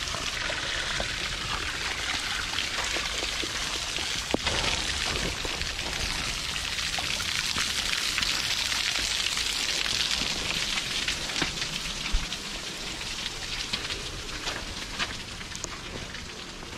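Muddy runoff water pouring off a sandstone ledge and splattering onto the rock trail: a steady splashing hiss that is loudest around the middle and eases near the end, with a few scattered footsteps.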